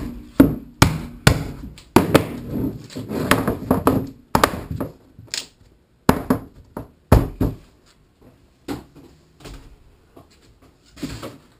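Black rubber mallet striking the top of a PVC pipe frame about four times in the first two seconds, seating the pipe into its fittings. Scattered knocks and scrapes of the plastic frame being handled on the wooden workbench follow.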